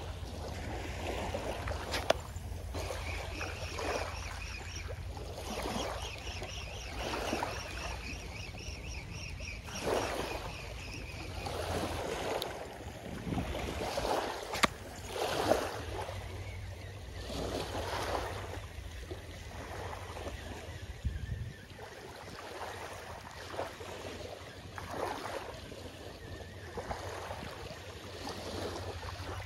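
Small waves washing on a sandy beach in repeated soft swells, with wind rumbling on the microphone. A high, pulsing whir runs from a few seconds in to about a third of the way through, and there are a couple of sharp clicks.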